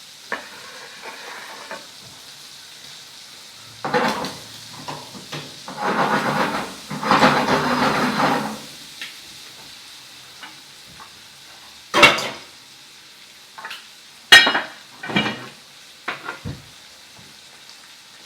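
Kitchen clatter of dishes, pans and utensils being moved and set down: a few sharp clinks and a longer stretch of scraping and stirring about six seconds in. Under it runs a faint steady sizzle from a frying pan.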